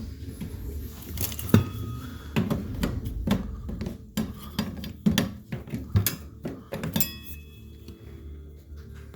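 A tool knocking and clacking against a microwave's jammed door latch, trying to force it open. Irregular metallic hits, two or three a second, some with a brief ring. The loudest comes about a second and a half in.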